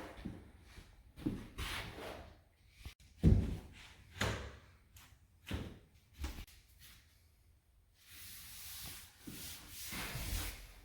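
Irregular knocks and scraping rubs of vinyl floor planks being handled and fitted, with one sharp, loud knock about three seconds in and a longer scrape near the end.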